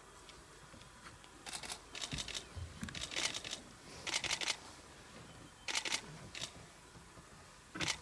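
Camera shutters firing in several short bursts of rapid clicks, as in continuous shooting.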